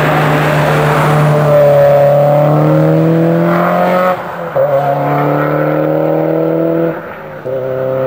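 Subaru Impreza rally car's turbocharged flat-four engine under hard acceleration as the car passes and pulls away, the pitch rising steadily in each gear, with two upshifts, about four and seven seconds in.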